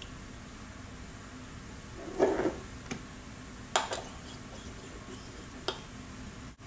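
Steel parts handled by hand: a short knock and rustle about two seconds in, then light metallic clicks, a quick cluster and one more near the end, as a threaded stainless ring is fitted onto a polished steel rod. A steady faint hum runs underneath.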